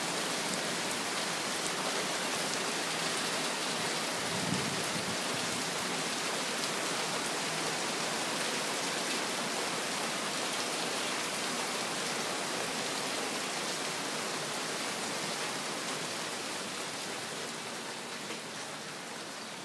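Heavy rain falling steadily on a paved patio and garden plants, an even hiss of drops that grows a little softer near the end.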